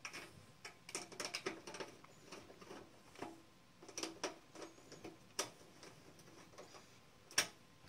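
Screwdriver driving small screws into a metal computer case's hard drive cage: faint, irregular clicks and ticks, with two sharper clicks in the second half.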